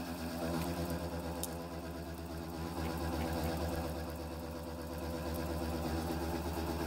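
Milling machine running a 2-inch shell mill through a facing cut on a round metal part: a steady motor hum with the sound of the cut.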